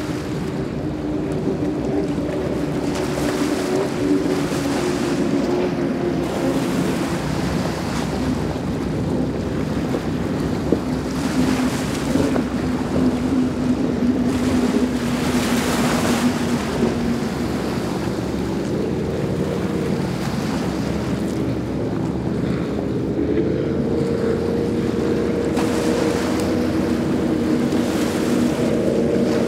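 Mercury Racing 450R supercharged V8 outboards on racing catamarans running past at full speed: a steady engine drone whose pitch slowly falls through the first half, then a second boat's engines come in rising in pitch and hold high near the end. Rushing water and wind noise run underneath.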